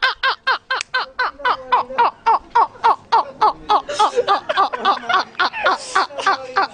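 Men laughing hard in a long, high-pitched run of rapid 'ha-ha' bursts, about four or five a second.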